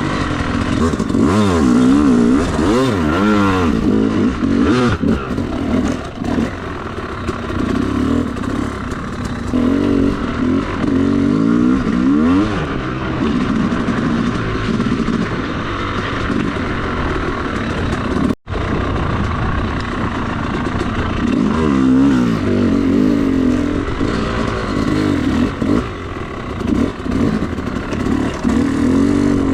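Yamaha YZ250 two-stroke dirt bike engine being ridden, revving up and down repeatedly as the throttle is worked on and off. The sound cuts out for an instant about eighteen seconds in.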